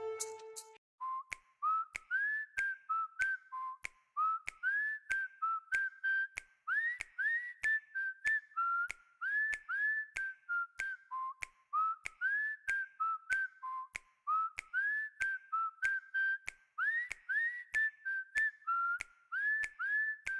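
Huawei P40 lite E ringtone: a whistled tune of short, mostly upward-gliding notes, repeating, with light regular clicks keeping time. It begins about a second in as the previous ringtone's music dies away.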